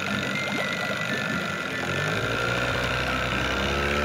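Cartoon sound effect of a ferry's engine setting off at full speed: a steady low engine rumble that comes in about halfway through.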